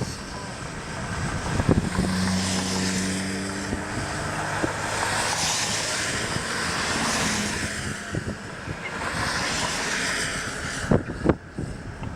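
Vehicles passing on the road, their tyre and engine noise swelling and fading three times, the first with a low engine hum. A few clicks or knocks near the end.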